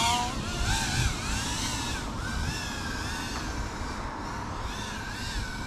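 FPV quadcopter's brushless motors whining, the pitch wavering up and down as the throttle changes.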